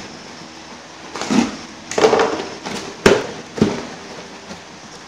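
Cardboard shipping box being torn open by hand: several short rips and crackles of cardboard, with a sharp snap about three seconds in.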